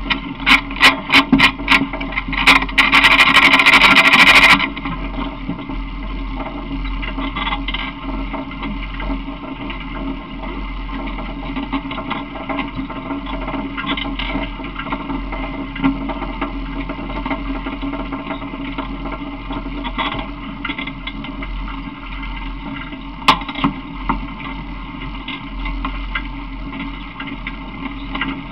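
Steady ride noise from an open vehicle: rumble and wind on the camera microphone. In the first few seconds there is a quick run of loud knocks on the camera mount, ending in a dense loud burst about four seconds in; one more sharp knock comes near the end.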